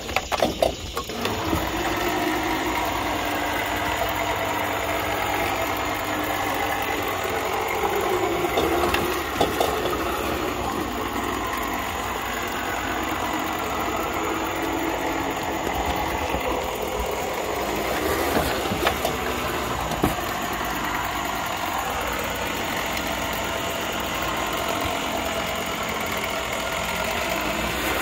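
Electric motor and gear drive of an Escalera stair-climbing hand truck running steadily as it climbs wooden steps with a refrigerator strapped on, with a few sharp clunks along the way.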